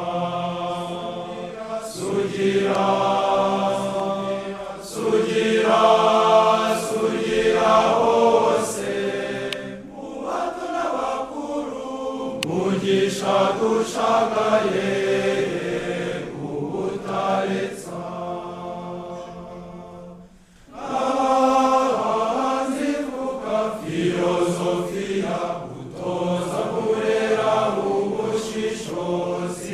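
A choir singing a slow chant in long held phrases. The singing dies down almost to nothing about twenty seconds in, then comes back.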